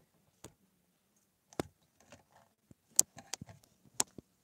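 Handling noise from a phone: a few sharp, separate clicks and taps at uneven intervals, the loudest about three and four seconds in.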